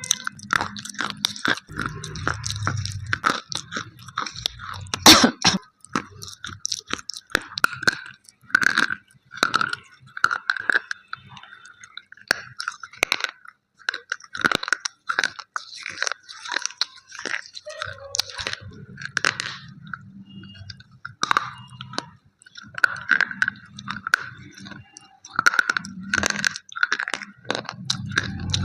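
Close-miked chewing of slate pencil pieces: a person's teeth crunching the chalky sticks in a dense, irregular run of sharp crunches.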